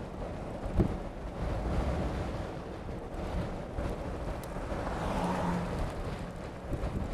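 Strong storm wind blowing over the microphone: a rushing noise that rises and falls in gusts, with a sharp knock about a second in.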